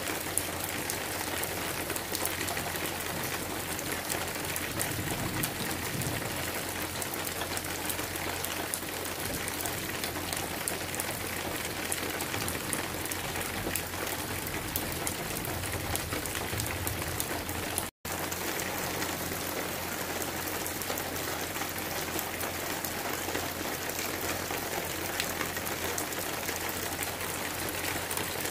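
Steady rain falling, a dense even hiss speckled with many small drop ticks. The sound cuts out for an instant about two-thirds of the way through, then carries on unchanged.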